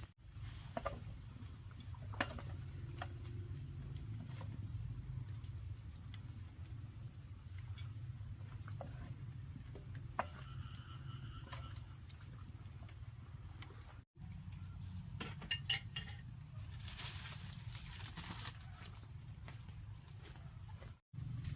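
Insects calling in a steady high buzz over a low rumble, with a few scattered clicks and knocks. The sound cuts out briefly twice.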